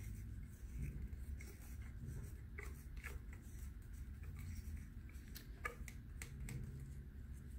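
Faint scraping and light taps of a wooden craft stick working paint out of small plastic cups, over a low steady hum.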